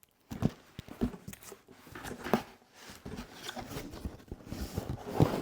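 A parcel being handled and unpacked: irregular rustles, crinkles and light knocks of packaging.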